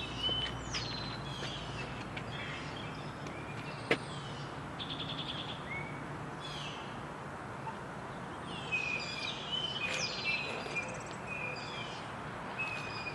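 Several songbirds chirping and singing, with short downward-sweeping calls and a couple of quick trills, over a steady background hum. One sharp click about four seconds in.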